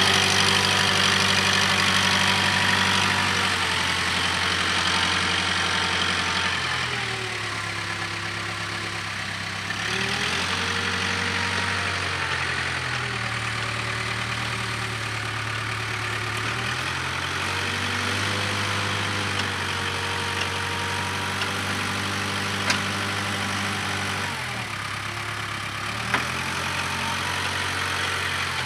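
Case 580K backhoe's diesel engine working the front loader, its speed dropping and picking up again several times, with a higher whine that shifts in pitch along with it. Two sharp knocks come in the last third.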